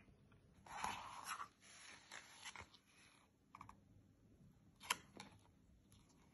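Faint paper handling of a lift-the-flap picture book, with soft rustles of its pages and flaps being moved about a second in and a few light ticks after, one sharper near the end. Otherwise near silence.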